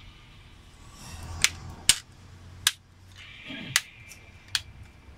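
Sharp plastic clicks and knocks as an HP laptop's display lid and bezel are handled: five clicks in about three seconds, irregularly spaced, with soft shuffling between them.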